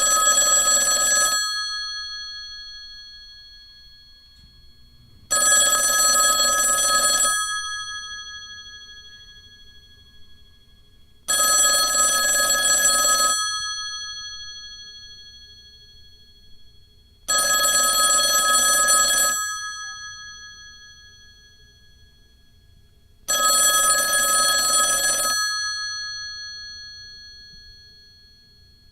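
Telephone bell ringing: five rings of about two seconds each, about six seconds apart, the ringing fading away between rings.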